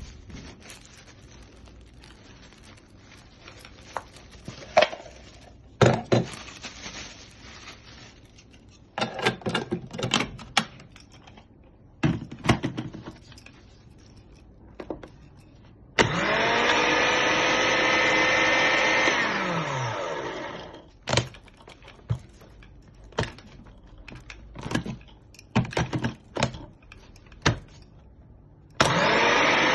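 Philips HR2223 blender motor running at speed for about four seconds, then winding down with a falling pitch as it is switched off. A second run starts near the end. Scattered clicks and knocks come before and between the runs.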